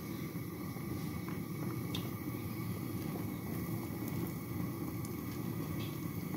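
A pot of kheer (rice and milk) simmering on the stove: a steady low rumble with faint bubbling and a couple of small pops.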